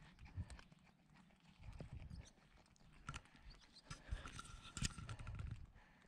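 Footsteps on a concrete walkway: irregular soft thumps and clicks, with a few louder knocks.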